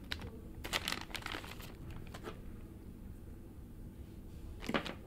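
Faint crinkling of a small plastic bag being handled and opened as a new rubber vacuum-cleaner drive belt is pulled out of it: a run of light crackles over the first couple of seconds, then a few more near the end.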